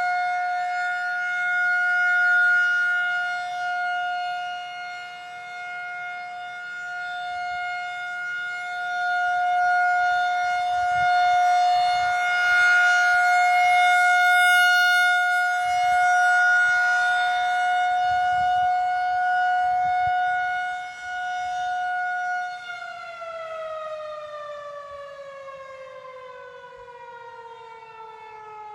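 Federal Signal 2001-130 rotating electromechanical warning siren sounding a steady tone during a test, swelling and fading in loudness as it rotates. About 23 seconds in it begins winding down, the pitch falling steadily.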